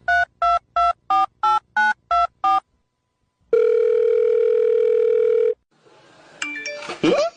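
Touch-tone telephone dialing a number: eight quick two-note keypad beeps, about three a second, then after a short pause one long ringing tone of about two seconds. A brief sliding sound follows near the end.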